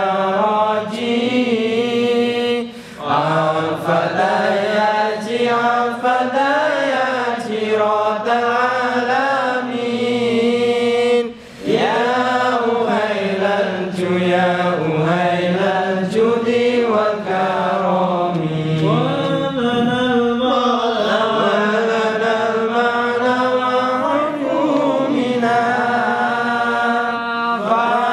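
A group of men chanting Arabic devotional verses together, a continuous melodic chant of voices alone, with brief pauses for breath about three seconds and about eleven seconds in.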